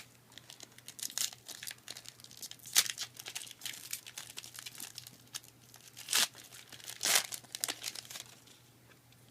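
Foil Yu-Gi-Oh! booster pack wrapper being crinkled and torn open: a run of crackles with a few louder tears, stopping shortly before the end.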